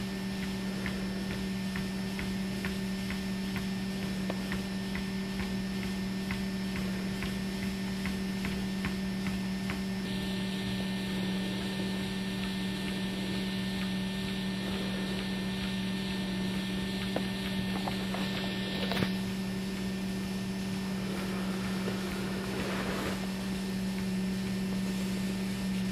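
Motorised treadmill running at a steady speed with a constant electric hum.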